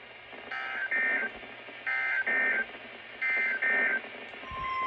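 Emergency Alert System SAME header: three short bursts of screechy digital data tones about a second and a half apart. Near the end a steady warning alarm tone begins, the signal that a new alert follows.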